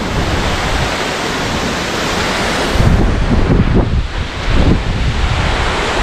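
Steady rush of a waterfall. From about halfway through, gusts of wind buffet the microphone.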